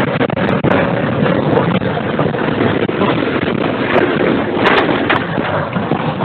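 Tornado passing over the building: a loud, steady roar of wind, with a few sharp knocks of debris striking, several of them around four to five seconds in.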